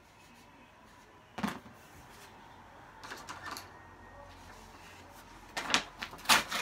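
Knocks and clatter of things being handled close to the microphone: one thump about a second and a half in, a few light clicks around three seconds, then a quick run of louder sharp knocks near the end.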